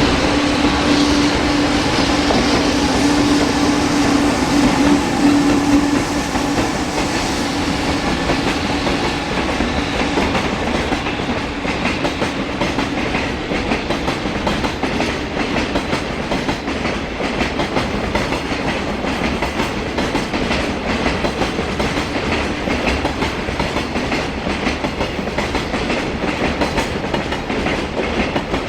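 Container freight train passing close by, the wheels of its wagons clattering steadily over the rail joints. A steady hum in the first few seconds fades as the wagons roll past.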